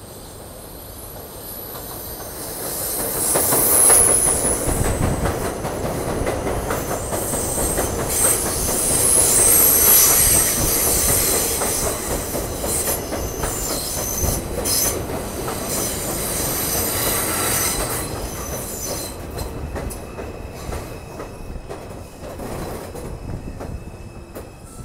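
An R142 subway train pulling into an elevated station on a curve, its steel wheels squealing on the curved rails over a rumble and clatter of wheels on track. It grows louder as the train draws alongside, then eases off in the last several seconds as the train slows.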